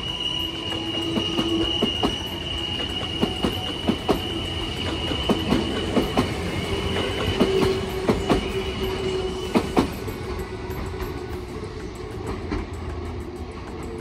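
Kintetsu electric commuter train passing close on a tight curve. Its wheels squeal with a steady high-pitched tone, and sharp knocks come irregularly from the wheels crossing rail joints. The squeal and knocking stop about ten seconds in, leaving a quieter rumble.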